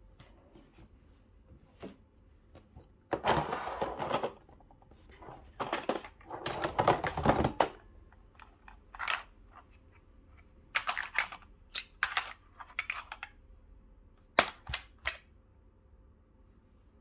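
Stainless steel espresso filter baskets and their holder being handled: two spells of clatter, then a scatter of sharp metallic clicks and clinks.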